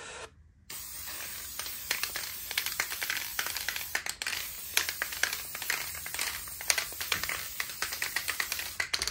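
Aerosol can of Krylon workable fixative spraying a final coat: a steady hiss that starts abruptly about a second in and cuts off just before the end, with many small clicks over it.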